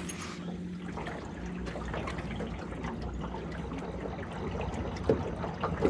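Water trickling and lapping, over a steady low hum, with two short knocks near the end.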